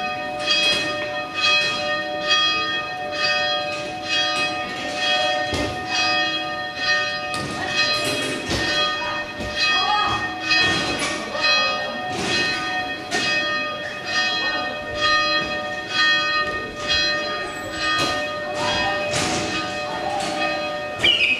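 Church bells ringing: several bells of different pitch struck over and over, about two strokes a second, each tone ringing on between strokes.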